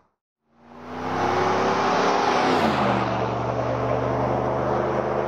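Dodge Ram 1500 V8 pickup with a Flowmaster American Thunder cat-back dual exhaust, accelerating past. The sound fades in after a short silence and climbs in pitch, then drops to a lower, steady exhaust note about three seconds in as the truck pulls away.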